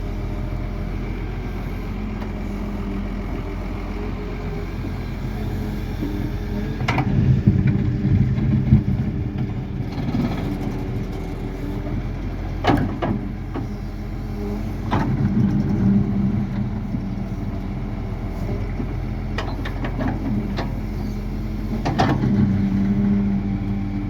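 Doosan DX140 excavator's diesel engine running steadily, getting louder in several stretches as it works under load, with a few sharp knocks now and then.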